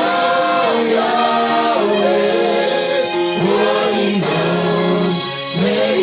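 Slow gospel worship song sung by several voices over backing music, with long held notes.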